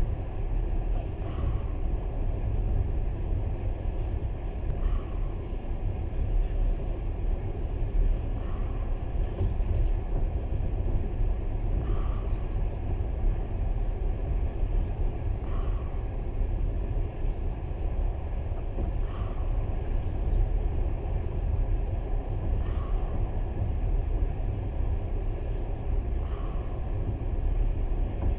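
Steady low rumble of a moving passenger train, heard from inside the carriage, with a faint short sound that comes back about every three and a half seconds.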